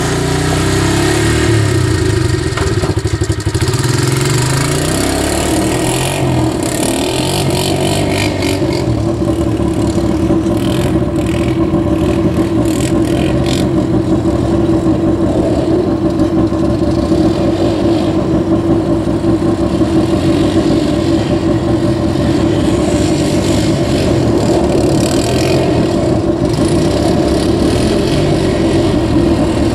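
Single-cylinder engine of a 1985 Honda ATC250SX three-wheeler running steadily under way, with rattling and clatter between about 6 and 14 seconds in.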